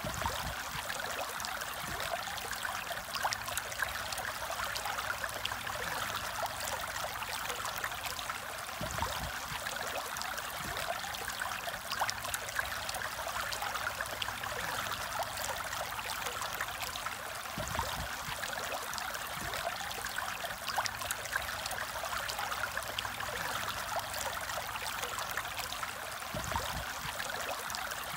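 Aquarium water trickling and bubbling steadily, with fine crackles throughout.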